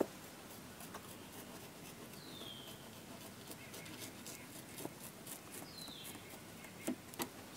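Faint outdoor ambience with scattered small clicks and ticks from hands working paper at a car fender. A bird gives two short falling calls, about two seconds and five and a half seconds in.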